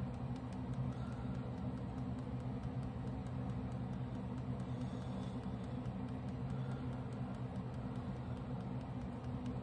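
A steady low background hum with no distinct events.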